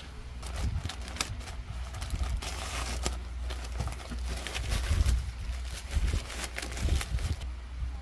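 Thin black plastic bag crinkling and rustling as hands rummage through the clothes packed inside it, in irregular bursts with sharp crackles, stopping near the end.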